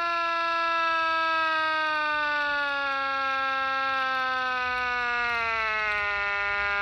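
1943 Federal Electric air raid siren sounding one long, steady wail that slowly sinks in pitch as its rotor loses speed.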